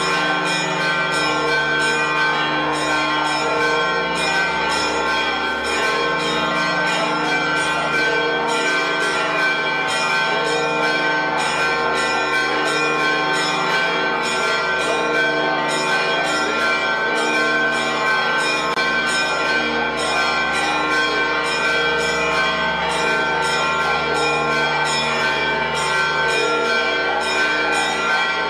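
Church bells pealing continuously: many bells ring together with rapid overlapping strikes, several a second, in the festive peal that announces the Holy Fire.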